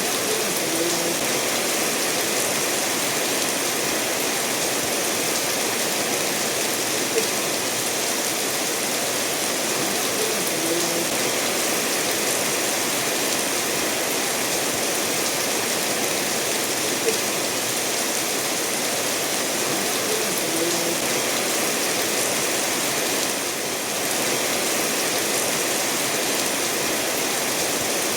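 Steady rainfall mixed with a stream of water flowing over stones, making an even, dense hiss. Two brief sharp ticks of single drops stand out about ten seconds apart, and the same small sounds recur about every ten seconds, as in a looped recording.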